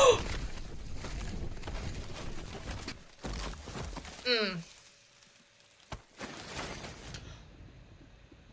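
Tree branches and leaves rustling as a branch is shaken, with a low rumble under it; about four seconds in a brief voice slides down in pitch, and then it goes much quieter with a few small clicks.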